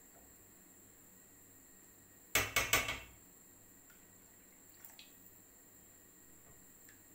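A quick clatter of four or five sharp knocks, a wooden spoon striking a stainless steel pan, about two seconds in, then a couple of faint ticks; otherwise only a low, steady background.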